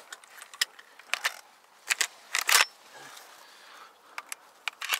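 Handling noise: a string of sharp clicks and rattles as a shotgun is handled close to the microphone, with the loudest clatter about two to two and a half seconds in.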